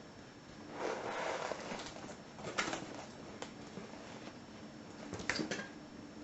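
A heavy box being shifted and handled: a short rustle about a second in, then scattered sharp knocks and clicks, with two close together near the end.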